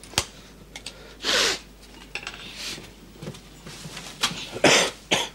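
Food and crockery being handled and unpacked on a table: a sharp knock just after the start, then several short bursts of rustling and scraping, with light clinks.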